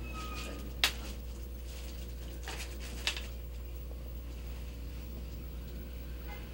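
Steady low hum of background room tone, with two sharp clicks, one about a second in and one about three seconds in.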